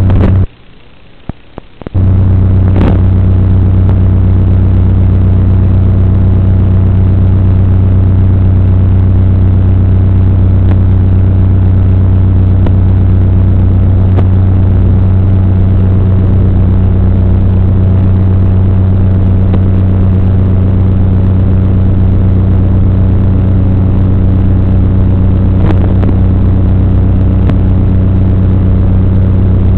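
Loud, steady electrical buzzing hum on the audio channel of an analog FPV video feed. Its pitch stays the same throughout, and it cuts out for about a second and a half near the start with a few clicks.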